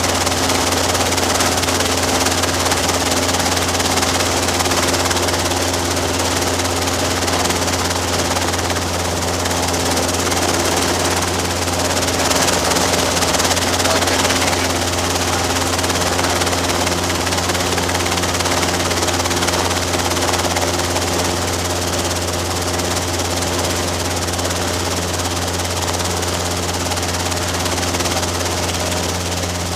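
Robinson R22 helicopter in flight: a steady drone of rotor and engine with a constant low hum, holding level without change.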